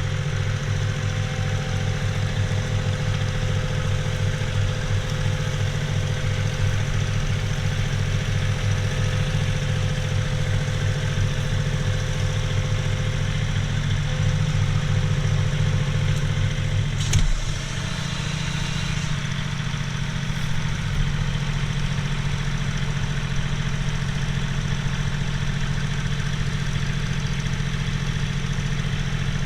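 John Deere 3039R compact tractor's three-cylinder diesel engine running steadily while pulling a middle buster through potato rows. There is a brief clunk about seventeen seconds in, after which the engine note shifts.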